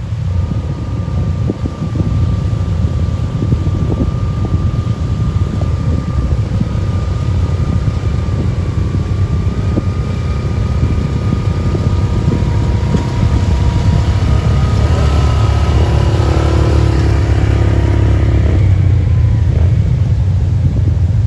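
A motor vehicle's engine running steadily, with heavy low rumble from wind on the microphone and a thin whine whose pitch drifts slightly.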